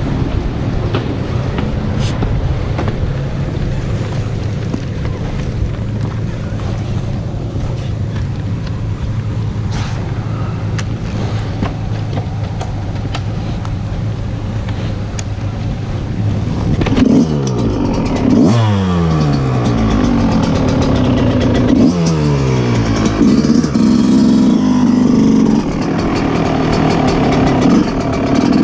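Yamaha YZ125 two-stroke single-cylinder dirt bike engine idling steadily, then, a bit past halfway, revving and pulling away, its pitch climbing and dropping back several times.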